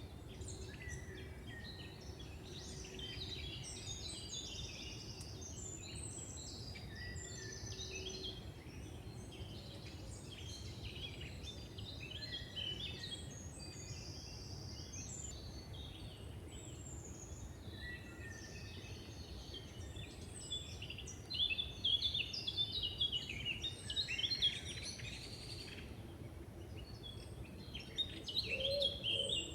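Several songbirds singing and chirping in woodland, many overlapping short calls and trills, over a steady low background rumble. The birds grow louder and busier about two-thirds of the way through and again near the end.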